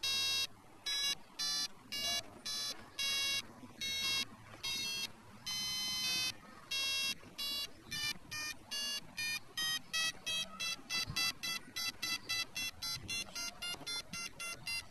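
Loc8tor Pet handheld tracker beeping: repeated electronic beeps, spaced out at first and quickening to about three a second in the second half, the handset's sign that it is getting closer to the collar tag.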